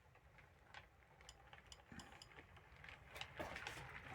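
HO scale model train moving slowly, heard faintly as scattered light clicks over a low hum, the clicks growing louder and closer together about three seconds in.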